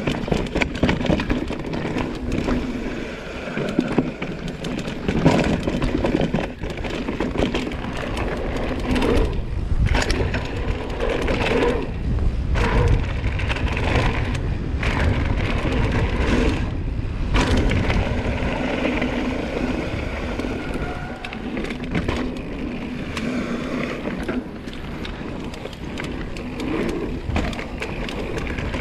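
Propain Tyee enduro mountain bike rolling fast downhill over a dry, rocky dirt trail: tyres crunching over loose ground, with chain and frame rattling and many sharp knocks as it hits bumps and rocks.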